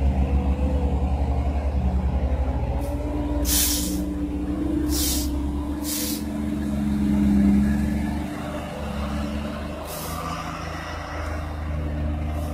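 Heavy diesel engines of a dump truck and the backhoe loader towing it through mud running steadily under load, with a fast throbbing beat for the first few seconds. Four short, sharp hisses of air cut in, typical of a truck's air brakes.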